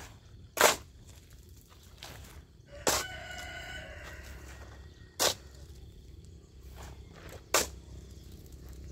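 Four sharp strikes of a short-handled hand tool chopping into hard ground, evenly spaced a little over two seconds apart. A rooster crows once about three seconds in.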